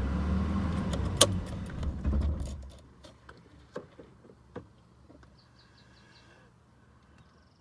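Jaguar XJ6's straight-six engine idling, which the owner thinks needs its intake cleaned up, then switched off about two and a half seconds in. A sharp click just over a second in, and after the engine stops a few small clicks and the jingle of keys.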